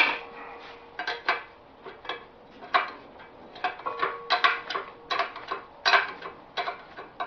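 Steel wrenches clinking and clanking on the bolts of a wood splitter's hydraulic cylinder as they are worked loose. The clicks are sharp and irregular, some ringing briefly.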